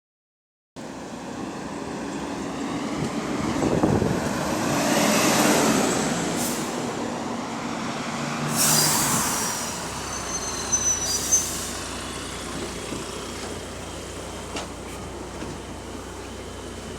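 Double-decker bus's diesel engine running and building up as the bus moves off, heard from on board, with the exhaust leak the bus is known for. Short hisses of air, typical of the air brakes, about six and a half, eight and a half and eleven seconds in, the middle one the loudest.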